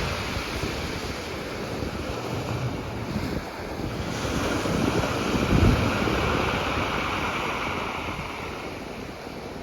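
Sea waves breaking on rocks, a continuous surf wash that swells to a peak about five or six seconds in and then eases off. Wind buffets the microphone in low gusts.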